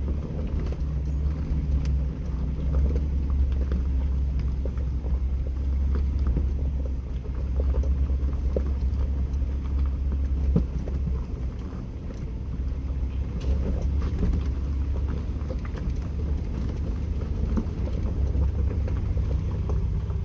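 Jeep Wrangler running at low speed on a rocky off-road trail: a steady low engine and drivetrain rumble with small scattered knocks and rattles.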